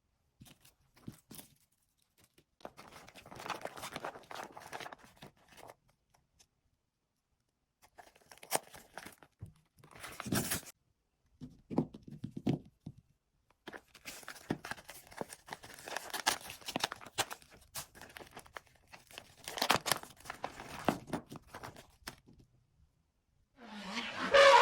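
Irregular bursts of rustling, crinkling handling noise, like plastic or paper being handled, with silent gaps between them. A pitched sound starts just before the end.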